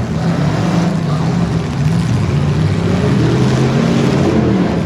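Several stock V8 demolition-derby cars' engines running together, revving up and down.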